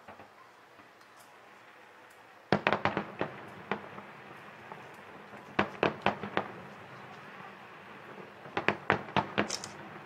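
Aerial fireworks shells bursting: three volleys of quick, sharp bangs, each lasting about a second and coming about three seconds apart, after a quiet first couple of seconds.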